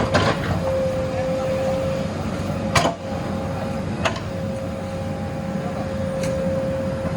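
JCB backhoe loader's diesel engine running steadily under a steady whine, with about four sharp metallic clanks, the loudest near the middle, as the machine works the logs.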